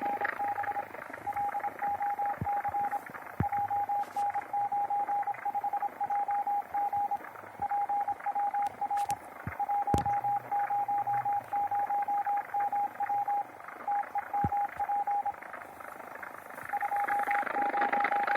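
Morse code (CW) signal from a Malachite-clone SDR receiver: a single steady tone keyed on and off in dots and dashes, over a continuous band hiss with a few sharp clicks. The hiss is the noise its owner suspects comes from the receiver's DC converter.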